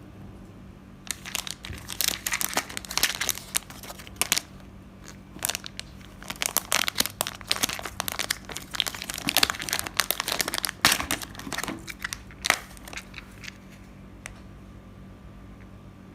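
Crinkling and rustling of something being handled, coming in irregular bursts for about twelve seconds, then stopping, leaving a steady low hum.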